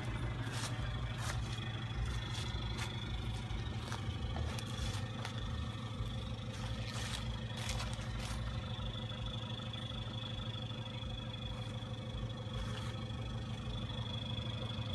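Toyota Hilux 3.0 turbo-diesel engine idling steadily, with scattered light clicks over it.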